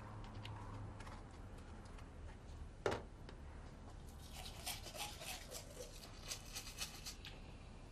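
A single sharp click about three seconds in, then a toothbrush scrubbing teeth in quick, scratchy strokes for about three seconds.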